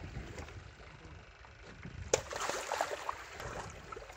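Water splashing as a hooked leopard ray thrashes at the surface beside a boat. It starts with a sharp splash about two seconds in and goes on as a dense, crackling splashing.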